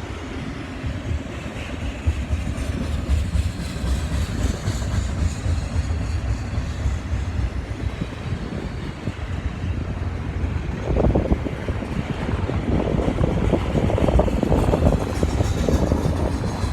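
BNSF intermodal freight train's container cars rolling slowly past: a steady low rumble with a constant rattle of knocks from wheels and car bodies, louder and busier about eleven seconds in.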